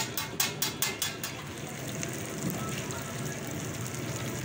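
Chicken chapli kabab frying in hot oil in a wide flat pan: a quick run of about six sharp taps of the spatula against the pan in the first second or so, then a steady sizzle of the oil.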